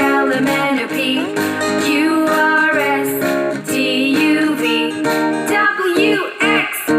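Children's song music with plucked and strummed acoustic guitar.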